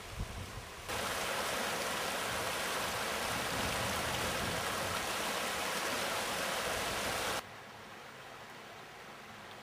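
Stream water rushing and splashing down a small step in a concrete-walled channel: a steady, loud rush that starts suddenly about a second in and cuts off sharply after about six and a half seconds. A fainter low rumble comes before and after it.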